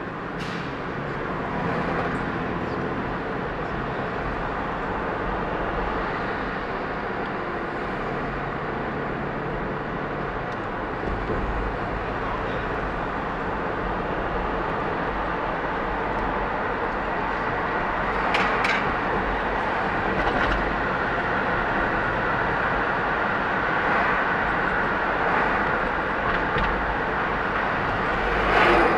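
Traffic noise from a car driving through city streets: steady road and engine rumble with the hiss of passing vehicles, broken by a few short sharp knocks, twice close together about two-thirds of the way through and once near the end.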